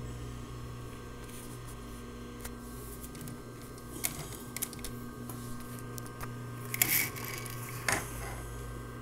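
Adler K268 industrial sewing machine standing powered on, its motor giving a steady electric hum, with scattered mechanical clicks and two short, louder bursts of machine noise about seven and eight seconds in.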